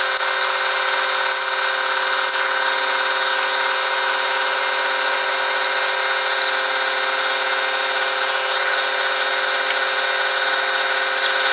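An electric motor running at a steady, unbroken whine, the sound of a power tool in use.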